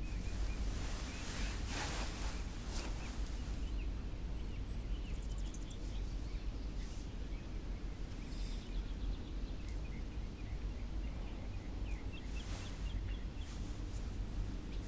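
Steady low ambient rumble with faint scattered chirps and a few brief soft rustles.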